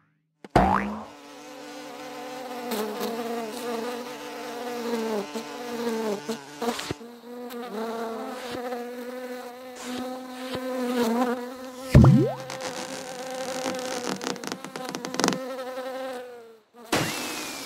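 Cartoon fly buzzing, its pitch wavering up and down as it circles, which cuts off shortly before the end. About twelve seconds in, a sudden loud sound effect with a quickly rising pitch cuts across it.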